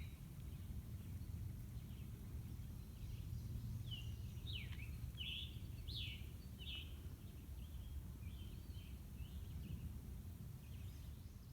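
A wild bird singing a quick series of short, high chirps, about a dozen notes in the middle of the stretch, over a steady low rumble.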